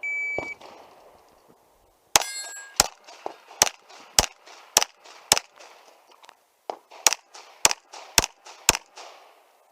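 Electronic shot timer beeps once, then a handgun fires a string of about ten shots at roughly half-second intervals, with a pause of about a second and a half near the middle. About two seconds in, a shot is followed by a metallic ringing, typical of a steel target being hit.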